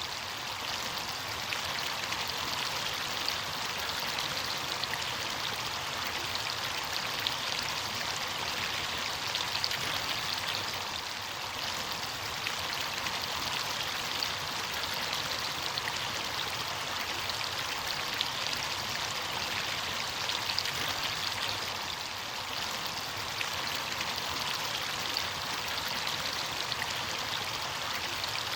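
Running water of a stream, a steady rush with fine splashing throughout.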